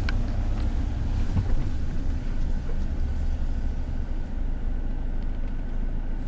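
Campervan engine running, heard inside the cab as a steady low rumble, with a faint high whine coming in a couple of seconds in.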